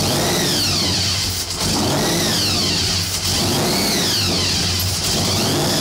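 Supercharged stroker Holden V8 with a TBS 8/71 blower running at idle, its revs swelling and sagging in a regular cycle about every one and a half seconds so the blower whine glides up and down with them.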